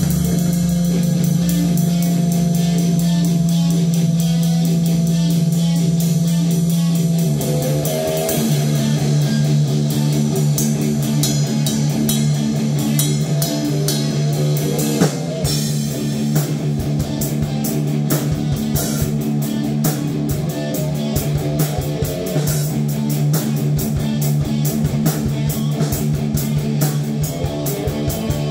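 Electric guitar and drum kit jamming metal. A held low chord changes about seven seconds in to a busier riff, with dense drum hits under it.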